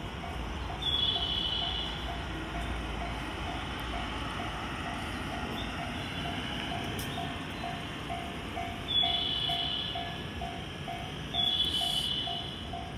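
Electronic warning tone beeping steadily about twice a second on a railway platform, while the train is still out of sight. A short, high two-note chirp, first note higher than the second, sounds three times. A low rumble runs through the first few seconds.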